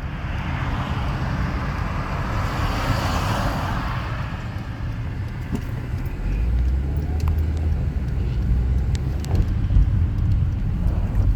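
Road traffic: a car passes with a whoosh that swells and fades over the first few seconds, over a steady low rumble that grows heavier a little past the middle.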